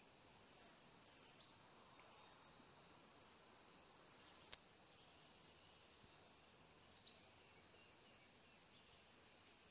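Insect chorus in the woods: a steady, unbroken high-pitched drone.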